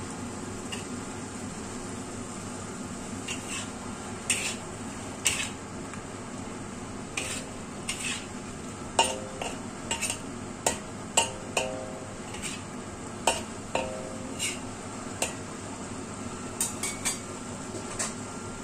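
Metal ladle clinking and scraping against a wok as diced winter melon and crab sticks are stirred, in irregular sharp knocks, some ringing briefly. Under it, a steady hiss of the food simmering in the pan.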